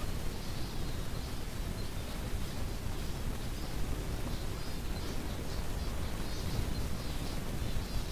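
A flock of finches chirping: many short, high calls overlapping throughout, over a low rumble.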